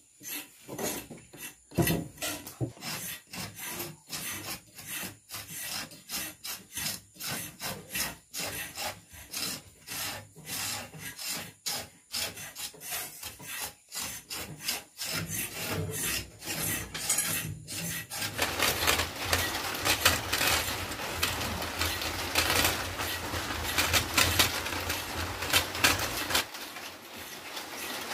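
A knife scraping the rough outer bark off freshly cut Ceylon cinnamon sticks in quick, repeated rasping strokes, about two a second, the first stage before the inner bark is peeled. From about eighteen seconds in the rasping becomes denser and nearly continuous.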